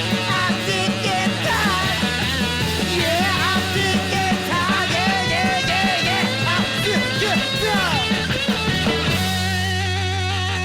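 1960s garage punk band playing with fuzz guitar, bass and drums at a steady beat under a snotty shouted vocal. About nine seconds in, the vocal stops and the band holds a final wavering chord that rings out.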